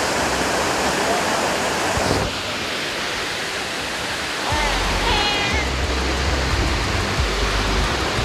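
Rhine Falls, a large river waterfall heard close up: a dense, steady rush of falling water. A deeper low rumble joins about halfway through.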